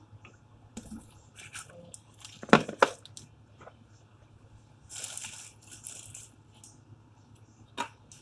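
A large plastic olive-oil bottle being handled on a kitchen countertop: two sharp knocks a little after two seconds in as it is set down, a brief crinkle of the plastic around five seconds, and a single click near the end as the screw cap goes back on.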